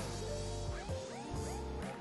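Background music: held bass notes under a quick repeating figure of short notes that bend upward in pitch.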